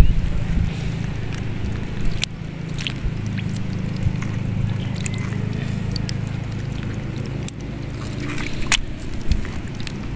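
Hands handling freshly caught fish in shallow water: soft wet squishes and small splashes, with a few sharp clicks, over a steady low rumble.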